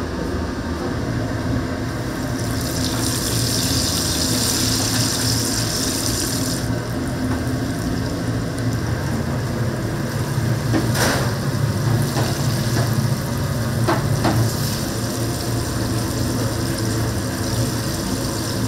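Chicken deep-frying in hot oil, a continuous sizzle over a steady low hum. The hiss grows louder for a few seconds early in the clip, and there are a couple of sharp clicks in the second half.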